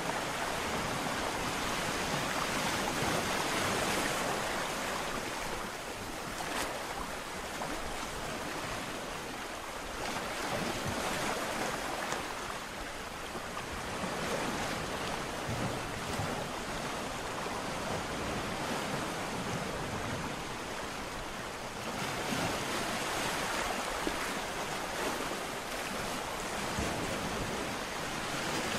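Ocean surf: waves breaking and washing up the shore in a continuous rush that swells and eases every several seconds.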